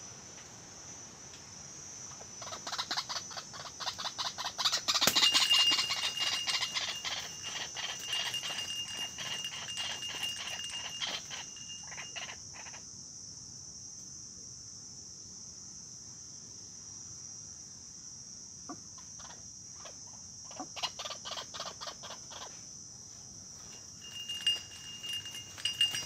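White-breasted waterhens calling in runs of rapid harsh pulses, loudest about five seconds in and dying away by about twelve seconds, then returning in shorter runs near the end. A steady high insect buzz runs underneath.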